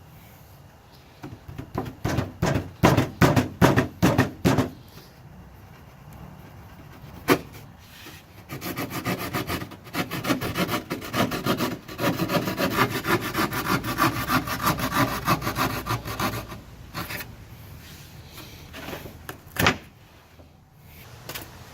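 Drywall being cut by hand: spaced scraping strokes about two a second, a sharp knock, then a long fast run of steady scraping strokes, with a couple of knocks near the end.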